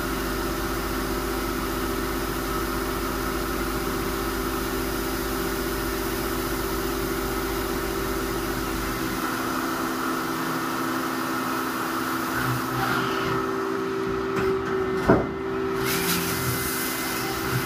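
CNC lathe running a muzzle-threading program, a steady machine hum with several fixed tones. A low rumble stops about nine seconds in, the sound turns uneven later, and there is one sharp click about fifteen seconds in.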